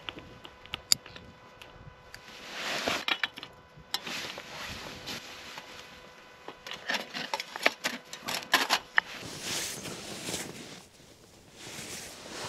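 Clinks and taps of a metal cook pot and folding windshield being handled, with rustling of gloves, sleeping bag and packaging as a camp brew is set up.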